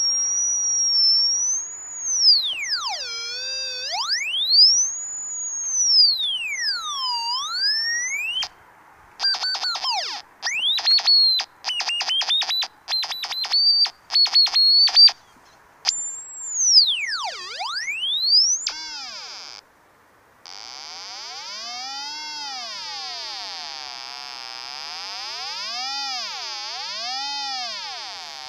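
Electronic tone from a VK3YNG fox-hunting sniffer receiver tuned to a 2 m beacon, its pitch sliding up and down as the signal strength through the yagi changes. For several seconds in the middle the tone chops rapidly on and off, and near the end it warbles up and down about once a second.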